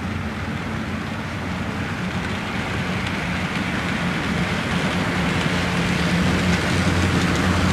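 HO-scale model passenger train, led by EMD F-unit locomotives, running along the track with a steady rumble of wheels on rail and a faint motor hum. It grows steadily louder as the train approaches.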